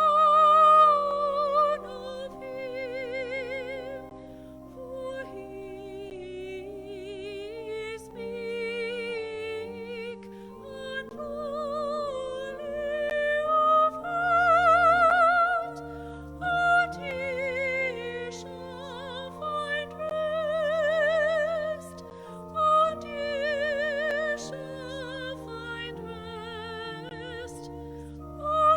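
Solo singing in a high voice with wide vibrato, over a sustained keyboard accompaniment: special music in a church service.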